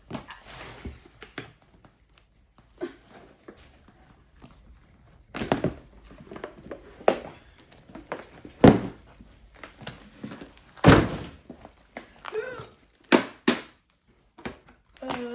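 Slime and its containers being handled: a series of separate thunks, about six in all and loudest near the middle, with faint squishing and rustling between them.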